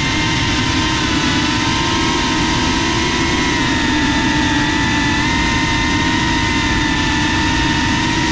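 FPV drone's electric motors and propellers whining steadily, several pitches at once that waver slightly, over a rushing noise, recorded on the drone's own camera.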